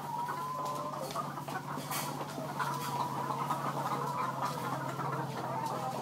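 A flock of chickens clucking, many calls overlapping continuously, over a steady low hum.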